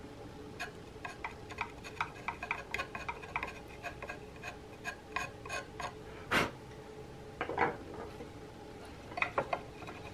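Hand-pushed flat chisel paring small cuts in the tang inlet of a wooden rifle stock: a run of light clicks and scrapes, with a louder knock about six seconds in and a few more near the end.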